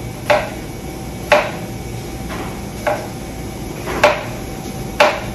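A chef's knife cutting straight down through a halved red onion and knocking on the cutting board, five separate knocks about a second apart.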